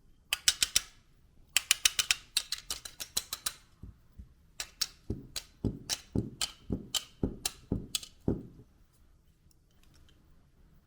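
Sharp, hard clicks in quick rattling runs for the first few seconds, then slower separate clicks, about two a second, each with a low knock, stopping about eight seconds in.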